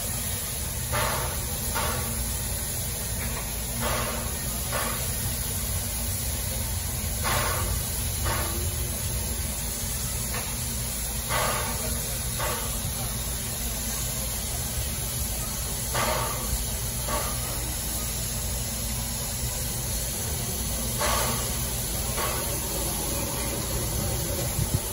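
Steam locomotive standing at a station, steam hissing steadily, with pairs of short puffs about a second apart every few seconds.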